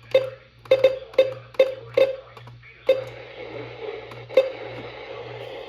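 A series of sharp, irregular clicks or taps, each with a brief ringing tone: several in quick succession over the first three seconds, then one more a little after four seconds, over a steady hiss and a low electrical hum.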